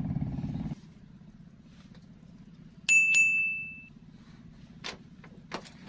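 A low hum cuts off under a second in. About two seconds later a small bell-like ding is struck twice in quick succession and rings away for about a second.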